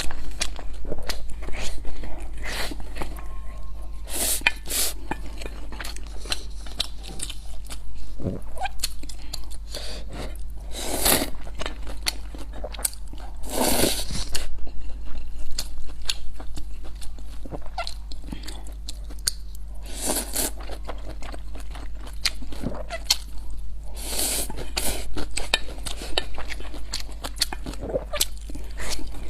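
Close-miked eating: chewing and wet mouth noises with many quick clicks, and a few longer, louder noisy sounds around the middle, over a steady low hum.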